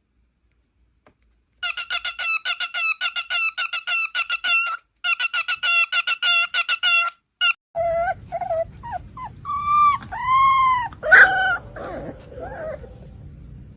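A dog yapping in a fast run of short, high yips, about five a second. Then, after a break, a dog gives short yelps and drawn-out howls that rise and fall in pitch.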